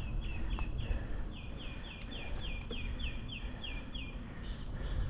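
A songbird singing a long series of short, downslurred whistled notes, about three to four a second, with a brief break about a second in, stopping just after four seconds. A low wind rumble on the microphone runs underneath.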